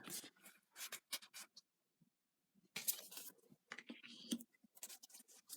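Tarot cards being handled: faint, scattered rustles and light clicks of card stock, with a pause of about a second midway.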